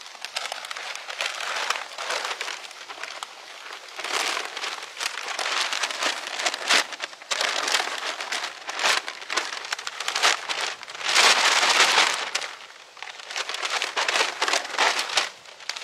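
Large brown paper yard-waste bag crinkling and crackling as it is handled, in uneven spells, loudest about eleven seconds in.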